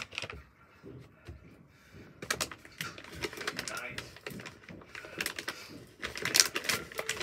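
Soft plastic packaging crinkling and rustling in the hands in several short, irregular bursts, the sound of a face-wipe packet being handled.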